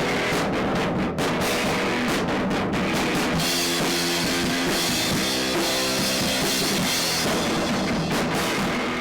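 Rock music driven by a full drum kit: steady drum hits at first, then sustained chords with a cymbal wash from a few seconds in.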